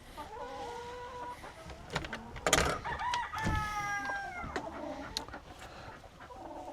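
Chickens calling: short calls in the first second, then one long, slightly falling call about three and a half seconds in. A few sharp knocks come between them.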